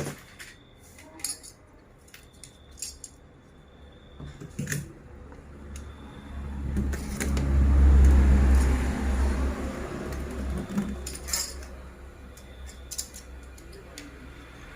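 Small metal tools clicking and clinking against a laptop motherboard, then about six seconds in a hot-air rework station blows a rushing stream of air that swells and fades over several seconds, as the suspected shorted B-FET MOSFET is being desoldered.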